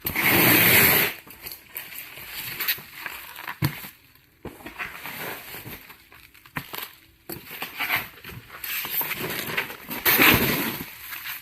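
Cardboard carton and plastic packing being handled and opened: irregular rustling, crinkling and scraping, with a loud burst right at the start and another about ten seconds in.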